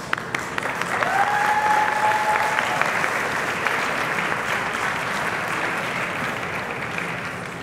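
Audience applauding, swelling about a second in and slowly easing off. One drawn-out call rises and then holds a steady pitch for under two seconds over the clapping.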